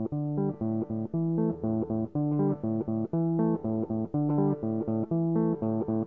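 Background music: plucked guitar and bass guitar playing short notes in a steady, repeating rhythm.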